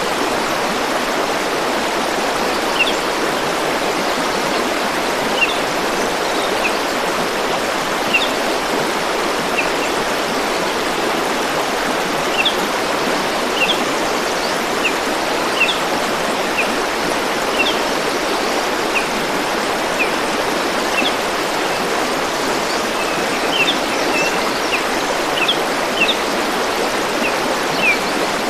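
A river or stream flowing with a steady rush. Over it, a bird gives short, high chirps, one every second or so.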